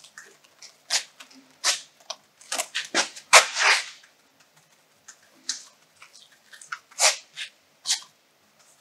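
Wet GFRC concrete being poured from a bucket and spread by gloved hand in a mould: a string of short, sharp, irregular splats and scrapes. The loudest and longest comes about three and a half seconds in.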